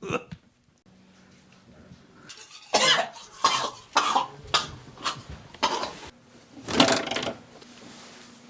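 A man coughing: one short cough at the start, then a fit of about eight coughs in quick succession from about three seconds in, the last one longer.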